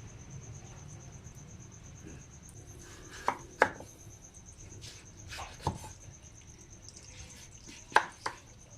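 Kitchen knife chopping a peeled unripe papaya: three pairs of sharp chops, each pair about a third of a second apart, with a couple of seconds between pairs.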